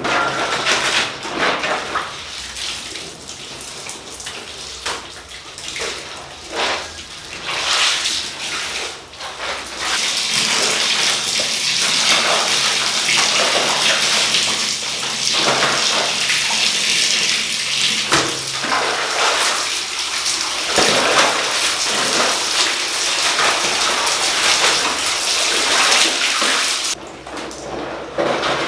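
Water splashing and sloshing, then a tap running hard into a tub from about ten seconds in, shut off abruptly shortly before the end.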